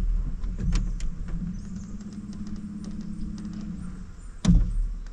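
A motor humming steadily for about two and a half seconds, then a single loud knock in the small boat about four and a half seconds in.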